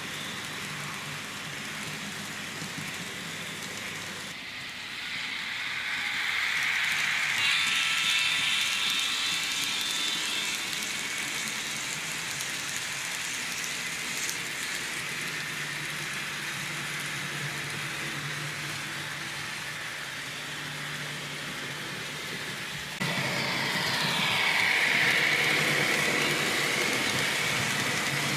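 N scale model train, an EMD E9 locomotive set with passenger cars, running on layout track: a steady rushing rattle of metal wheels on the rails with a low hum underneath. It swells and fades as the train passes, and jumps abruptly louder about 23 seconds in.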